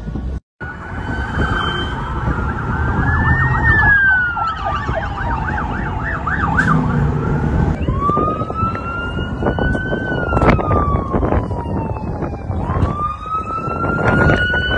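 Police sirens wailing in long rises and falls, switching to a fast yelp for about two seconds in the middle, over the low rumble of a car.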